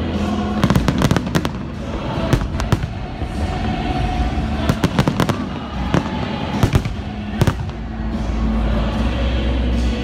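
Aerial firework shells bursting in groups of sharp bangs: a cluster about a second in, more at about two and a half and five seconds, and single reports near seven seconds. Music with long held notes plays underneath.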